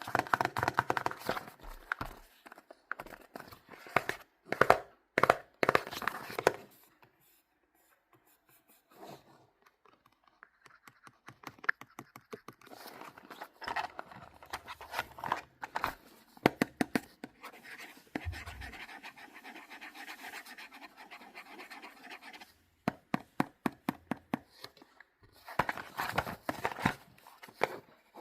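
Hands scratching, rustling and clicking at toy packaging while unboxing it, in irregular bursts with short pauses.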